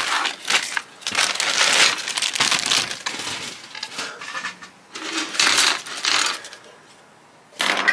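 Plastic bag crinkling and rustling as a set of chrome-plated plastic model parts trees is pulled out of it, with light clattering of the parts. The rustling comes in uneven bursts and dies away near the end.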